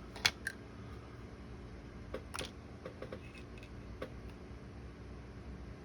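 Light clicks and taps of small tools and tiny model parts being handled on a workbench, the sharpest about a third of a second in, then a few softer ones scattered through, over a faint steady hum.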